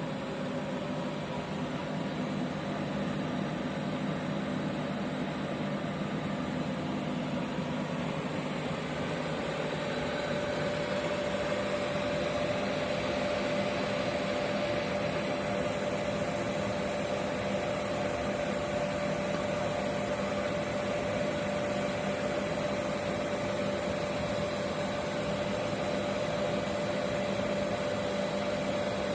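Heating-oil burner running steadily, its blower motor and flame giving an even rush with a steady whine that grows a little louder about ten seconds in.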